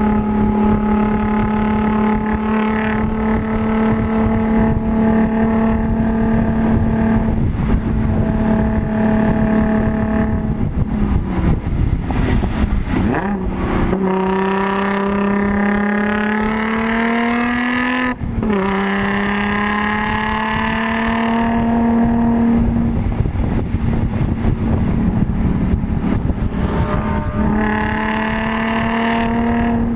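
Supercharged 3.0-litre V6 of a manual Audi S4 with an aftermarket supercharger and AWE Touring exhaust, heard inside the cabin at track speed. It holds steady revs, dips as the driver lifts partway through, then pulls with rising pitch, drops sharply at a quick upshift, climbs again and settles back to steady revs near the end.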